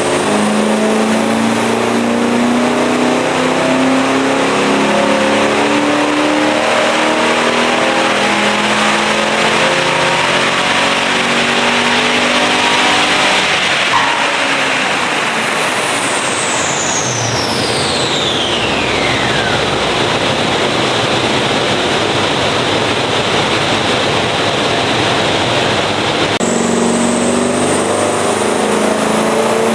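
Holden VY Commodore's 5.7-litre LS1 V8, fitted with a mild aftermarket cam, running loud and steady on a chassis dyno. About halfway through it gives way to a rushing noise with a high whine falling in pitch over several seconds, and the steady engine note returns near the end.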